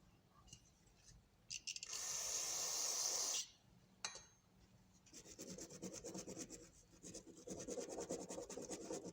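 A rough rubbing noise about two seconds in, then a rapid run of clicks, more than ten a second, in two spells over the last four seconds: a freshly greased Craftsman thumbwheel ratchet being worked so its pawl clicks over the gear teeth.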